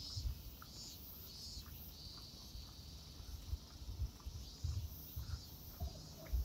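Cicadas singing in pulsing, wavering phrases, over irregular low thuds.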